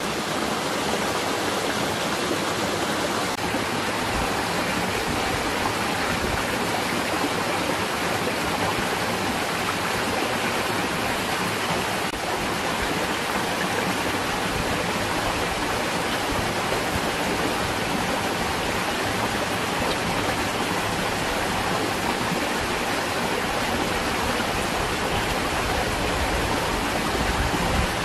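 Steady rushing noise like running water, even and unbroken throughout.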